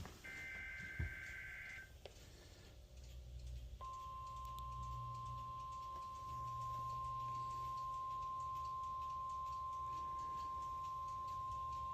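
NOAA Weather Radio alert signals received on a weather radio. First comes a burst of the SAME digital header, a two-tone warbling buzz about a second and a half long. About four seconds in, the steady single-pitch 1050 Hz warning alarm tone starts and holds, over a low hum. The alarm tone is the signal that turns on specially equipped receivers, sent here for the routine weekly test.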